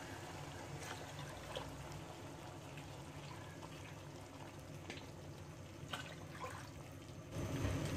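Water poured from a plastic jug into a pan of fried pulao rice: a faint trickle with a few light clicks, getting louder about seven seconds in.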